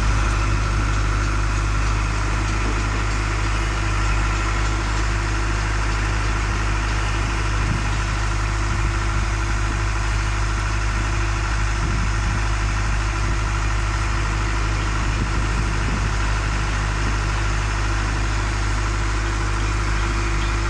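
A concrete mixer with pump running steadily, a constant machine hum over a low rumble.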